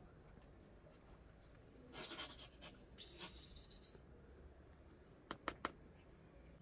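Faint sounds of wet cat food being scraped out of a small metal can onto a foam tray. A soft scrape comes about two seconds in and a higher, rasping scrape a second later, then a few sharp light clicks near the end.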